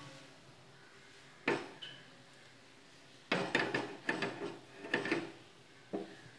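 Kitchen clatter of cookware: a sharp knock about a second and a half in, then a quick run of knocks and rattles lasting about two seconds, and one more knock near the end.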